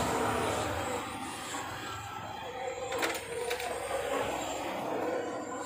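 Two light metallic clacks about three seconds in as a small metal planer part is set down on a workbench, over a steady background rumble.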